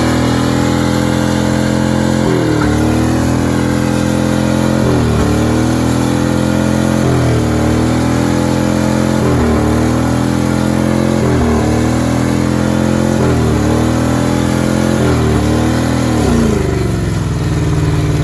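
Full-size van's engine held at high revs in a burnout, its rear tires spinning against the pavement. The revs dip and recover about every two seconds, then fall to a lower steady note near the end.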